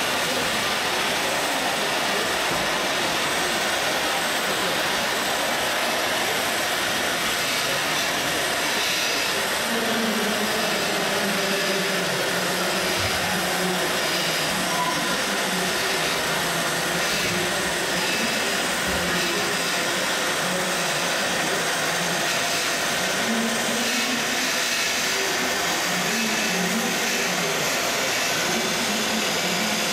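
Steady hiss-like din of an exhibition hall, with the wavering low hum of RC model machines running on the course joining in from about ten seconds in.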